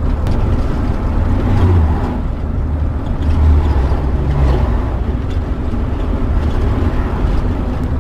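Converted bus motorhome driving along a highway, heard from inside: a steady low engine and road rumble that swells twice in the first few seconds.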